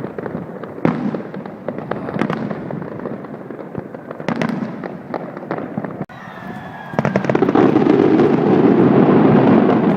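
Fireworks display going off with repeated sharp bangs and crackles. About seven seconds in it turns into a louder, dense, continuous crackle.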